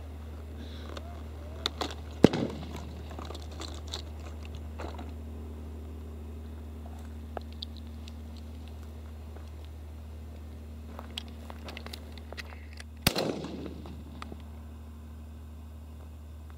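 Shells being handled and loaded into a Remington 1100 12-gauge semi-automatic shotgun: a series of light clicks, with one sharp metallic clack about two seconds in. About thirteen seconds in, a single shotgun shot rings out with a short echo.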